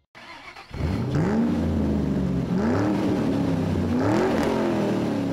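Car engine revved about three times, each rev climbing in pitch and dropping back, starting about a second in.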